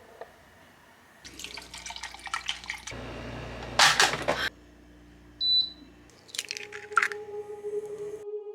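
Water running and splashing in uneven bursts, the loudest lasting about a second and a half, with a short high beep about five seconds in.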